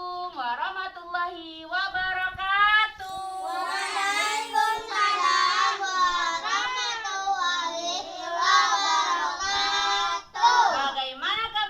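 Children singing a song in high voices.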